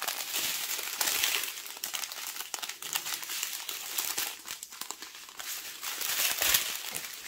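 Strip of small plastic bags of diamond-painting drills crinkling as they are handled and flipped through, a continuous crinkle with frequent sharp crackles.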